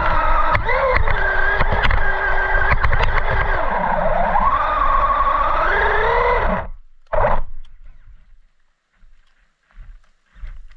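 Brushless electric motor of a Traxxas Rustler 4x4 VXL RC car whining, its pitch rising and falling with the throttle, over rattling and knocking from the chassis, heard from a camera mounted on the car. The motor cuts off suddenly about six and a half seconds in, gives one short burst of throttle about a second later, and is followed by a few faint knocks.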